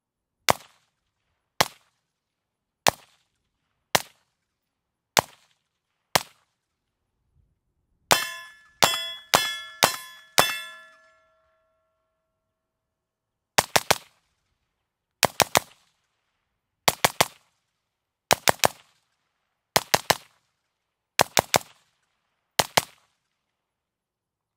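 5.56 rifle shots with M193 ammunition, heard from about 20 yards: six single shots about a second apart, then a quick string of five shots, each followed by a metallic ring. After a pause come seven quick groups of two or three shots from the rifle fitted with an Energetic Armament Ferox suppressor.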